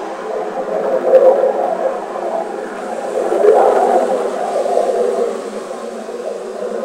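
A loud, wavering droning noise that swells and fades every second or two, with no deep rumble beneath it: one of the unexplained 'strange sounds' whose source is not known.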